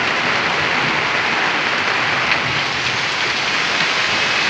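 Steady, even hiss of water.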